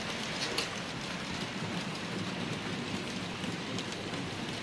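OO gauge model freight wagons rolling along the track in a steady whirr, with a few clicks as wheels pass over rail joints.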